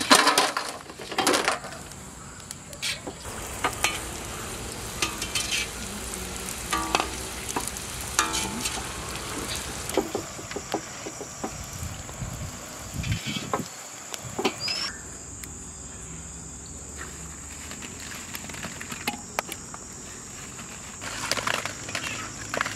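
Puris deep-frying in hot oil with a steady sizzle, and frequent short clinks and knocks of a metal utensil against the pan.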